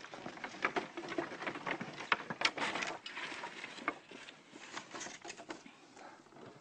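Scrap wood boards knocking and clattering underfoot as a person climbs a loose pile of lumber, a quick irregular string of knocks that thins out in the second half.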